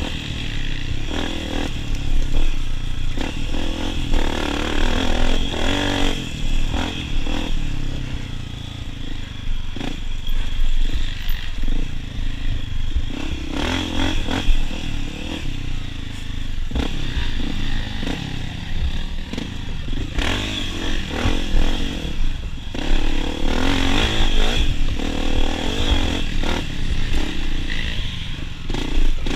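Honda CRF250F dirt bike's single-cylinder four-stroke engine being ridden hard off-road, revving up and dropping back again and again with the throttle, with some clattering from the bike over rough ground.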